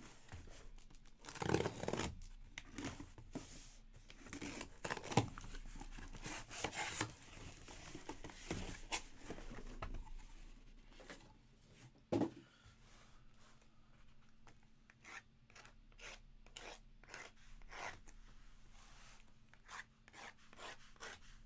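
Trading-card boxes and their wrapping being handled and opened: cardboard and plastic film rubbing, scraping and tearing in irregular bursts. It ends in a quick run of short crackles, and a faint steady hum comes in about halfway.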